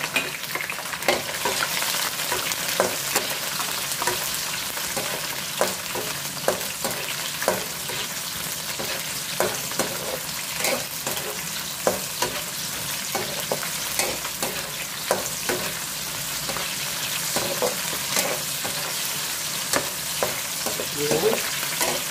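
Green and red bell pepper strips sizzling in hot oil in a non-stick wok, with a steady hiss, while a spatula stirs them and taps and scrapes against the pan at irregular intervals.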